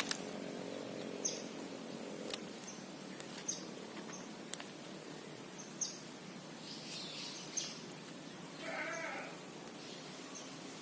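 Wild birds chirping in a forest: short high chirps every second or so, with a louder call of several quick warbling notes about nine seconds in. A few sharp clicks are scattered among them.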